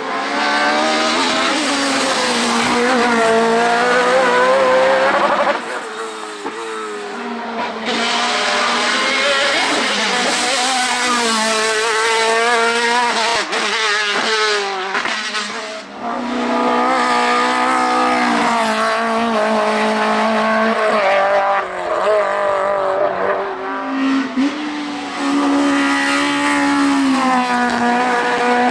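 Racing car engines at high revs, the pitch climbing and dropping again and again through quick gear changes and lifts off the throttle. The sound breaks off abruptly a few times as one car's run gives way to another.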